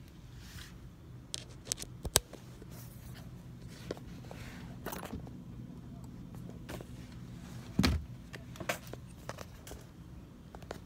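Handling noise from a phone camera being moved and set in place beside an industrial sewing machine: scattered clicks, knocks and rustles, with a loud thump about eight seconds in, over a steady low hum.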